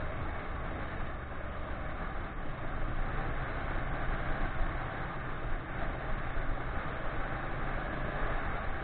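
Ducati 959 Panigale's L-twin riding at a steady pace, heard through a bike-mounted camera: mostly wind rush over the microphone, with a faint, even engine drone underneath.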